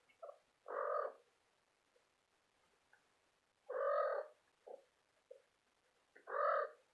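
A cat meowing: three short meows of about half a second each, a few seconds apart, with small faint squeaks between them.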